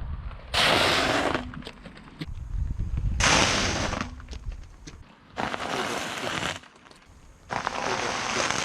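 Car tyre rolling over and crushing objects: four separate bursts of crunching and crackling, each about a second long, over a low rumble from the car.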